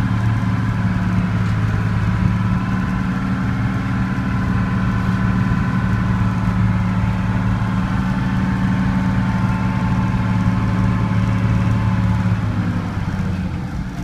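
Unimog U1300L's Mercedes six-cylinder diesel engine running steadily under load, with a fainter high whine alongside. The engine note eases slightly near the end.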